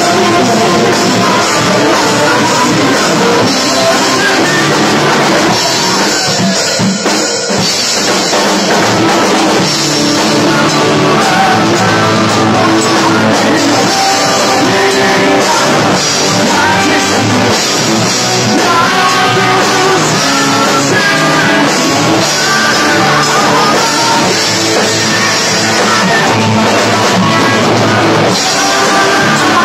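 Rock band playing a song: lead vocals over drum kit, two electric guitars, bass and keyboard, loud and steady.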